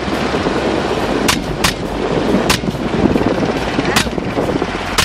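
Five rifle shots from a semi-automatic bullpup rifle, unevenly spaced, fired from an open-door helicopter over the steady noise of its engine and rotor.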